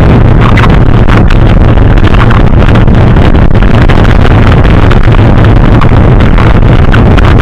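Wind buffeting the microphone of a mountain biker's camera while riding, a loud steady rumble with frequent short knocks and rattles from the bike over rough ground.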